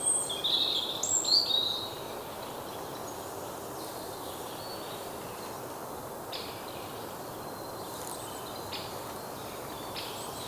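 Birds calling: a quick cluster of bright, high chirps in the first two seconds, then a few faint short calls over a steady background hiss of outdoor ambience.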